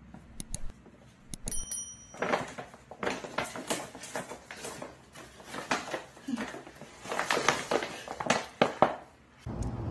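Paper shopping bag rustling and crinkling in irregular bursts as it is handled and a small pet is slipped into it, with a brief high squeak about a second and a half in.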